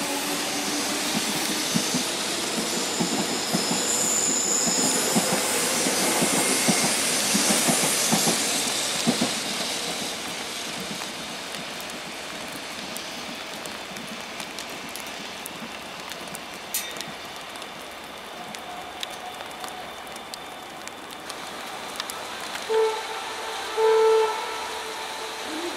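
Electric commuter train passing on Line 1: steady wheel-on-rail noise with a rapid clatter of clicks over the rail joints, loudest in the first several seconds, then fading to a low hiss as the train draws away. Near the end a train horn sounds two short blasts.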